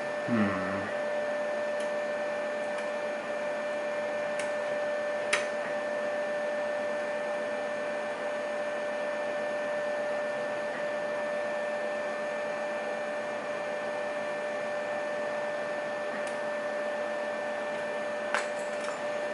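A steady hum with one constant pitched tone, with a few small sharp clicks of lock picks working inside a lock's keyway every few seconds, the sharpest about five seconds in.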